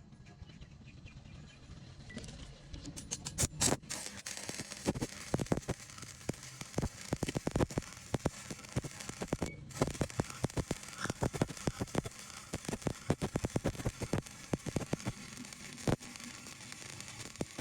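Electric arc welding on steel plate: the arc crackles and pops irregularly, with a brief break a little past halfway.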